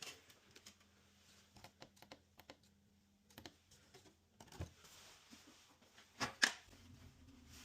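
Scattered light clicks and knocks of hands handling tools or parts, with a louder double knock about six seconds in, over a faint steady hum.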